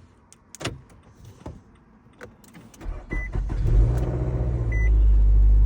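2015 Nissan Altima engine starting: a few light clicks, then about three seconds in it cranks, catches and settles into a steady idle, with short dashboard chime beeps. The car starts on the freshly programmed key with no iKey system error.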